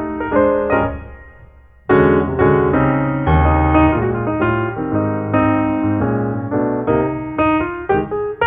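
Background piano music with notes played in quick succession; it fades away about a second in and a new passage starts abruptly just before two seconds in.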